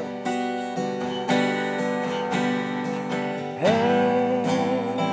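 Acoustic guitar strummed in a steady rhythm, about two strokes a second. Near the end, a man's voice sings one long held note over it.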